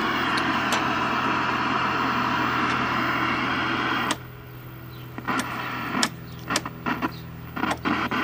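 Vintage colour TV's speaker hissing with static for about four seconds, then cutting off suddenly, followed by short snatches of sound over a steady mains hum as the set is tuned between channels.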